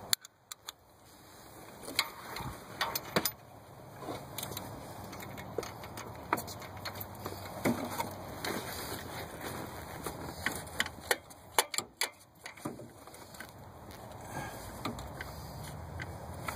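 Irregular metallic clicks, clinks and knocks of hand tools working a spark plug loose in an engine bay, with a quick run of clicks a little past the middle.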